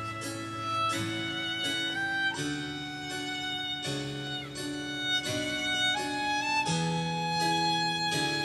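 Live violin playing a slow melody of long held notes over low sustained chords and a shifting bass line, with no drumbeat.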